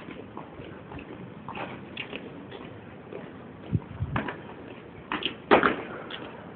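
Steady open-air background noise with a few scattered thumps and knocks in the second half, the loudest about five and a half seconds in.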